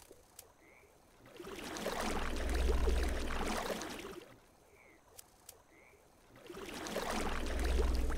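Reversed film sound effects: two long swelling surges of rumbling noise, each building over a second or two and then dying away. Between them are a few faint short chirps and clicks of night ambience.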